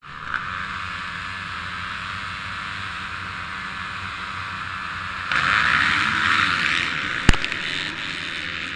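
A pack of motocross bikes running together on the start line; about five seconds in the engines rise sharply in a loud surge as the field launches off the line. A single sharp crack about two seconds later.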